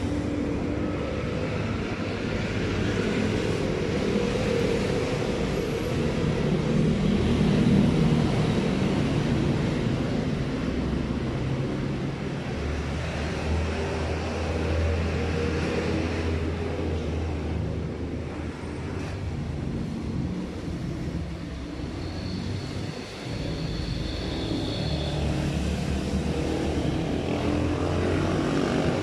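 A vehicle engine running with a steady low hum, its pitch shifting a few times.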